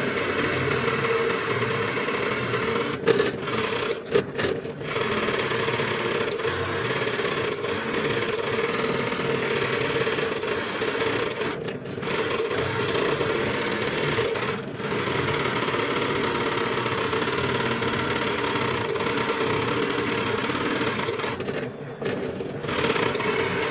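Drill press running with a large Forstner bit boring into the end grain of a log section, a steady motor hum under the chip-cutting noise, dipping briefly a few times as the cut eases.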